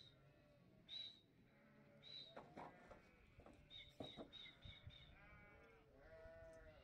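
Sheep and lambs bleating faintly, several overlapping calls, with a longer drawn-out bleat near the end.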